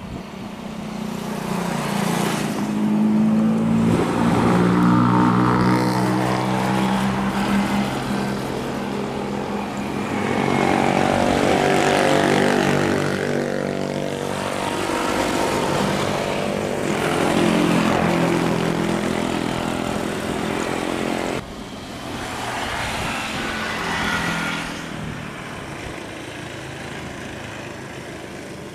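Boeing 737-800 (BBJ2) CFM56-7 turbofans at high thrust on the takeoff roll: a loud jet roar with buzzing fan tones that waver and glide in pitch. The roar swells and falls several times, drops suddenly about three quarters of the way through and eases off near the end.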